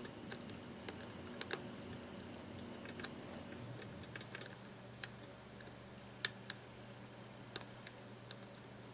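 Light, irregular metallic clicks of a lock pick working the pin tumblers inside a challenge lock, with two sharper clicks after about six seconds. A steady low hum runs underneath and shifts lower a little under four seconds in.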